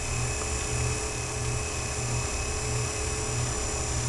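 Steady whir of a small electric motor driving a rotating display turntable, with a low throb pulsing about two to three times a second.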